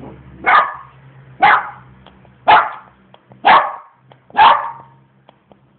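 A dog barking at a lizard: five loud single barks, about one a second.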